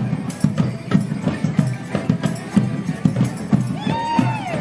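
A morris band of melodeons and drums plays a dance tune with a steady drum beat, while the dancers' wooden sticks clack in time. Near the end a voice gives a rising-and-falling whoop.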